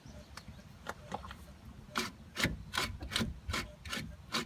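Jacked-up front wheel and hub of a 1996 Jeep Grand Cherokee ZJ being worked by hand, giving a string of short knocks and rubbing clicks, faint at first and then louder about two to three a second from about two seconds in: the loose play the owner takes for a bad wheel bearing.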